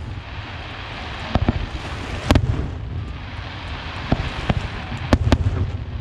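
Aerial firework shells bursting: a string of sharp bangs at irregular intervals, the loudest about two seconds in, over a low rumble.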